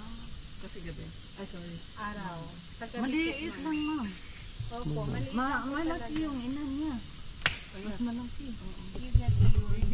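Steady, high-pitched, rapidly pulsing drone of insects calling in the mangrove trees, with faint voices talking beneath it and a brief low rumble near the end.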